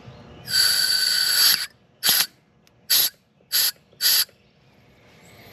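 Gas hissing out at a refrigerant service port as a valve core removal tool is worked on it: one hiss lasting about a second, then four short hisses about half a second apart.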